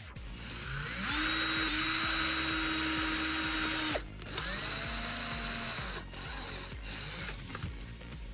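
Electric drill spinning up with a rising whine and running steadily for about three seconds, then stopping abruptly. It is triggered again for a shorter run that winds down, then a few brief blips.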